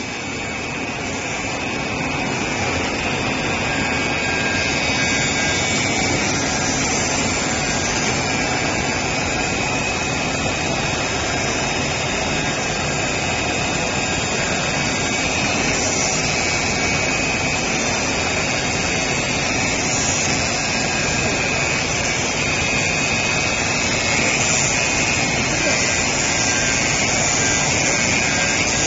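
Circular-knife CNC fabric cutting machine running as it cuts plaid cloth: a steady machine noise with a thin high tone in it.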